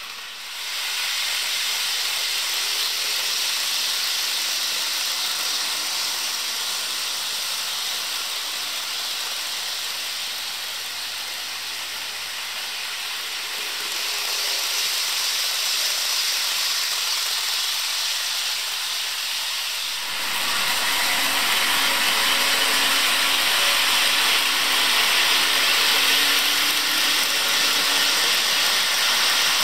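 HO-scale model train running on track: a steady hiss of wheels rolling on the rails, with a faint motor whine. About two-thirds of the way through it grows louder and fuller.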